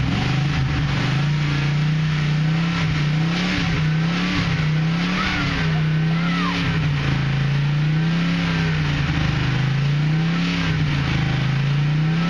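Freshly rebuilt Ford 390 FE V8 running at a raised speed on its first start during break-in. The engine speed rises and falls gently every few seconds.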